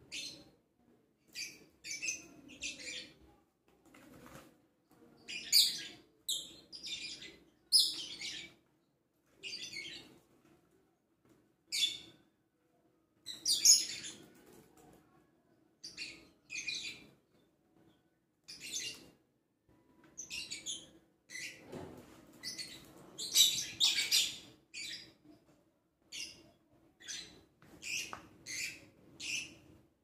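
Pet birds chirping in many short, shrill calls, coming irregularly about once a second or two, over a faint steady low hum.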